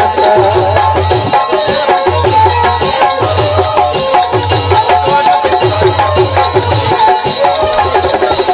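Instrumental Sufi folk music without singing: a wavering melody over a loud, steady drum beat.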